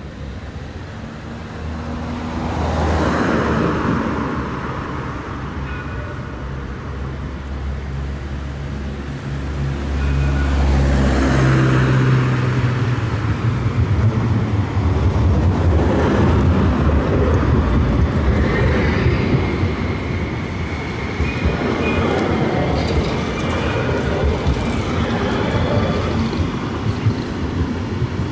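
City tram running on street track and passing close by, with a steady high whine through the latter half, while cars pass on the road alongside.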